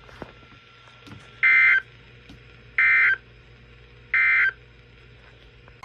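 Emergency Alert System end-of-message (EOM) code: three short, identical bursts of digital data tone about a second apart, marking the end of the broadcast alert.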